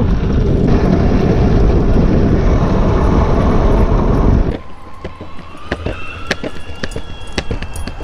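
Loud wind rush on the microphone and tyre rumble on asphalt while riding fast on a dog-pulled scooter. About halfway through it drops to a much quieter stretch of scattered sharp clicks with a faint high whine.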